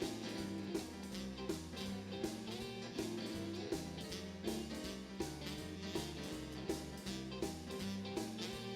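Music with a plucked guitar over a steady beat, about four beats every three seconds.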